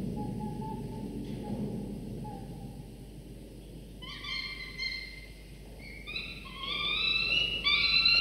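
Peregrine falcon chicks giving wailing food-begging calls: held, whining notes that step and slide in pitch, starting about halfway through and growing louder toward the end.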